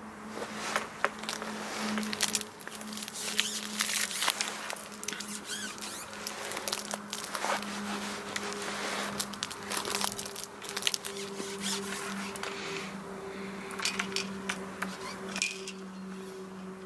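Close handling noise: crinkling and rustling with many scattered sharp clicks, over a steady low hum.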